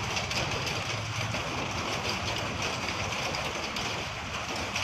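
Steady rain pattering, with scattered small ticks that fit stones falling mixed with the rain during volcanic ashfall.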